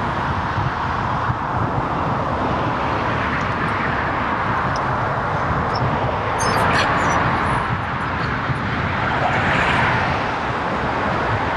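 Steady wind and road noise on a bike-mounted GoPro while riding, with traffic around and a vehicle swelling past about nine to ten seconds in. A few brief high clicks come about six and a half seconds in.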